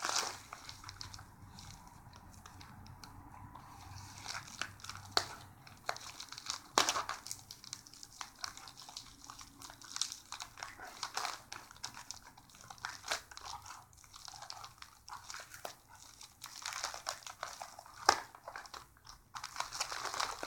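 Plastic bubble mailer crinkling and rustling in scattered sharp crackles as hands pull and pick at its sealed top to tear it open.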